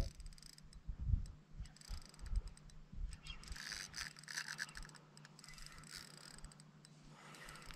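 Spinning reel being wound in on a fishing rod, a light whirring with rapid ticks that is strongest between about three and a half and five seconds in. A few low handling knocks come in the first three seconds, over a faint steady low hum.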